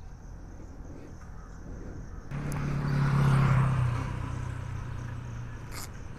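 A motor vehicle's engine comes in suddenly about two seconds in, swells to a peak, then fades away over the next few seconds, over a low steady rumble of traffic.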